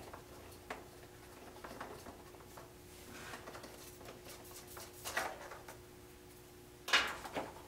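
Faint handling noises as the spare tire is unscrewed by hand from the roof of a Losi Super Rock Rey RC truck: light clicks and rubs, a couple of small knocks, and a sharper knock about seven seconds in. A faint steady hum runs underneath.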